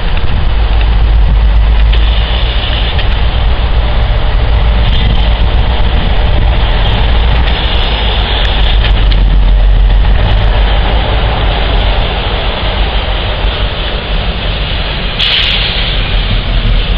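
DB Schenker Class 60 diesel locomotive hauling a train of tank wagons, its engine running with a steady low drone as it approaches. A brief hiss about fifteen seconds in.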